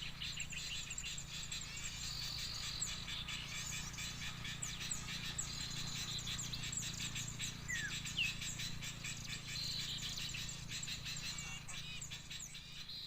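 Many small birds chirping and twittering busily and without pause, a dense mass of quick, high notes with a few short sweeping calls, over a steady low hum.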